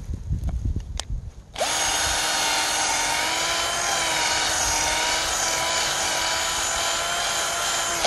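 Cordless drill boring a hole into a fresh kudzu root: the motor starts about a second and a half in and runs at a steady pitch for about six seconds, stopping near the end.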